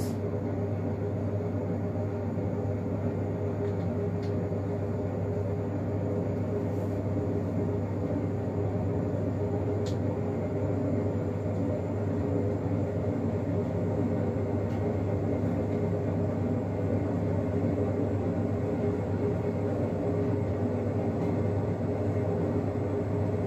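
A steady low mechanical hum with a rumble, unchanging in level, with a faint small click or two.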